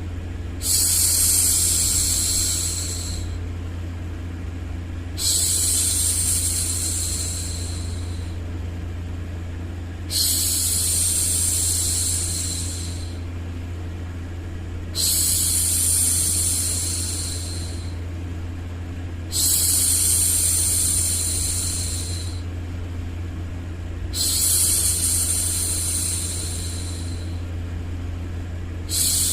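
A woman's hushing 'shhh', repeated about every five seconds, each shush lasting two to three seconds, over a steady low hum.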